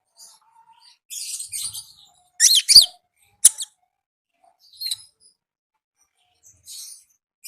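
A konin songbird calling in short, high chirps and twitters, with a loud pair of quick falling whistled notes about two and a half seconds in, a sharp single chip a moment later, and fainter calls near the end.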